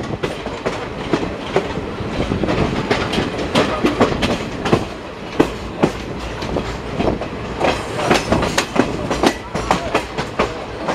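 Train wheels clattering over rail joints and points, irregular sharp clacks over a steady running rumble, heard from the open doorway of a moving coach.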